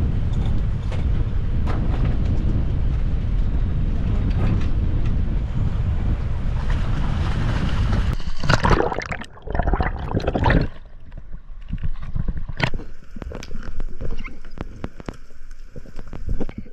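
Wind buffeting the microphone over water and boat noise, then loud splashing about eight seconds in. After that the sound turns quieter and muffled, as heard underwater, with many scattered sharp clicks.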